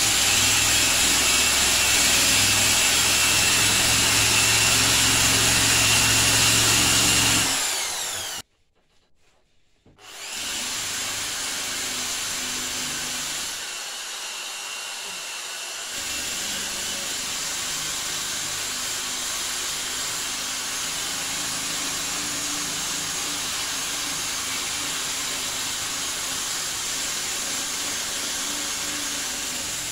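Electric drill running with a bit scouring the rust inside a motorcycle fuel tank. It stops about eight seconds in and winds down, and after a pause of a couple of seconds it starts again and runs on a little quieter.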